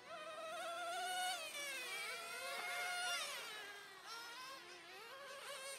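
Several 1/10-scale radio-controlled touring cars racing, their motors making a high buzzing whine whose pitch rises and falls with the throttle. Two or more pitches overlap, loudest about a second in and again about three seconds in.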